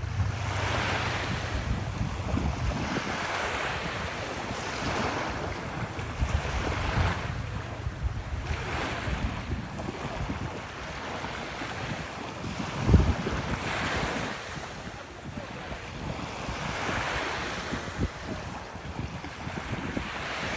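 Sea waves breaking and washing onto a beach, the surf swelling and fading every couple of seconds, with wind rumbling on the microphone. A single sharp low thump about halfway through.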